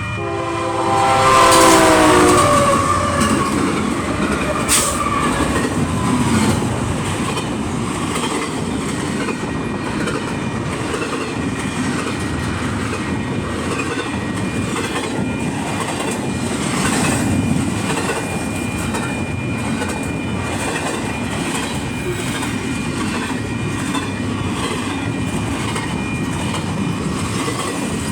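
Union Pacific train passing: its horn sounds several tones at once, falling in pitch as it goes by and stopping about two seconds in. Then the cars roll past with steady wheel noise and a rhythmic clickety-clack over the rail joints.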